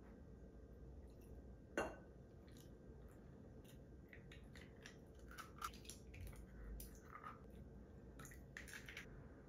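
Faint kitchen handling sounds at a glass mixing bowl. There is one sharp tap about two seconds in, then scattered soft clicks and taps as eggs are cracked into the bowl.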